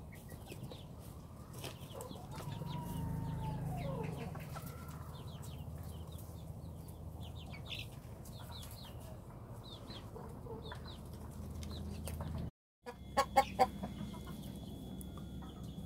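Chickens clucking and cackling around a coop, with one drawn-out call that falls away at its end about three seconds in, typical of a rooster crowing. A few sharp knocks near the end.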